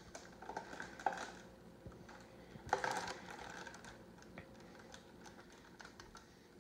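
Clear plastic bag crinkling and rustling faintly in scattered small crackles as the model airplane fuselage inside it is handled, with a louder rustle a little under three seconds in.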